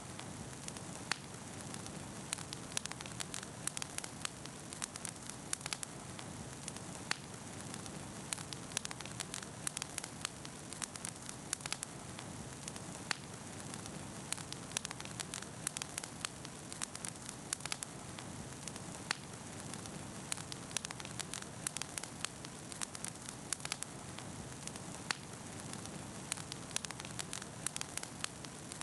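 Wood campfire crackling: a steady low rush of burning with frequent sharp, irregular pops and snaps.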